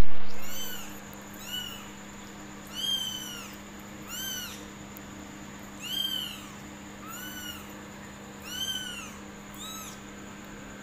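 Young kittens meowing again and again, about eight short high-pitched meows, each rising and falling in pitch, over a steady low hum. A sharp knock sounds right at the start.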